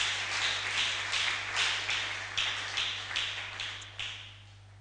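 A congregation clapping together in a steady rhythm, about three claps a second, in answer to a call to acclaim the Lord. The clapping dies away near the end.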